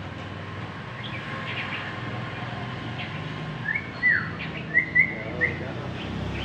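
Caged red-whiskered bulbul singing: a few faint chirps, then about two thirds of the way in a loud burst of four or five short whistled notes that swoop up and down, over a steady low hum.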